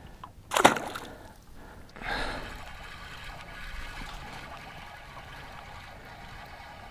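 Water trickling, starting about two seconds in and running on steadily, with a short, loud burst about half a second in.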